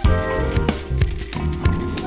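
Background music with a steady drum beat and sustained instrumental notes.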